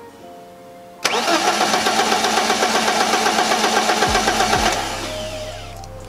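1995 BMW 318ti's four-cylinder engine cranking on its starter from a newly wired push-start button. It starts suddenly about a second in with a fast, even pulsing for about four seconds, then dies down.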